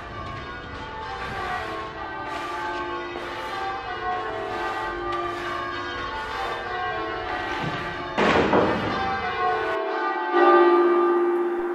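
Bells ringing, many strikes overlapping in a fast peal with long ringing tones. About eight seconds in there is a louder noisy clash, and near the end one deep tone rings on and fades.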